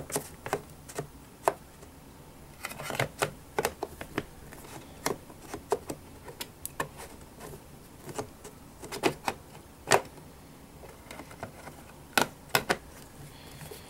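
Irregular light clicks and taps of the round plastic bottom lid of a 2011 Mac mini being set back on the case and turned toward its locked position.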